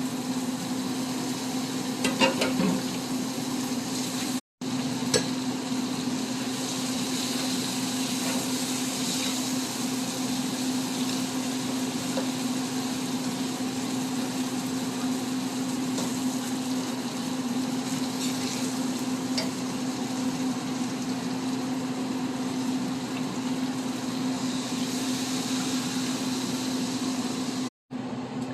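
Curry frying and sizzling in a pot as it is stirred, with a few spoon clinks and scrapes a couple of seconds in and again around five seconds in. A steady low hum runs underneath.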